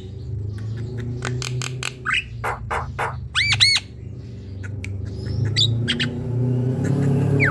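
Javan myna calling: a quick run of short clicks and harsh squawks, then two loud arched whistled notes about three and a half seconds in, and a few sparser calls after.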